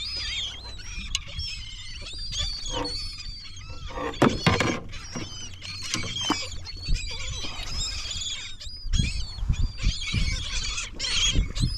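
A flock of seabirds calling over the water, many short high calls overlapping, with a low steady rumble beneath and a few knocks around the boat.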